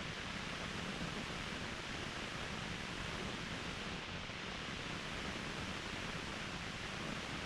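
Steady rushing of a mountain waterfall: a constant, even roar of falling water with no change in level.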